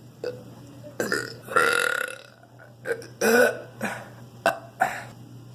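A person burping repeatedly: a series of short burps and two longer, drawn-out ones about one and a half and three seconds in.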